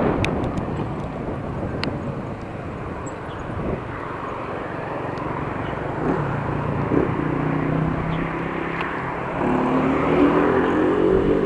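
Wind on the microphone and rolling noise while cycling, with a motor vehicle's engine hum coming in about halfway through and growing louder near the end.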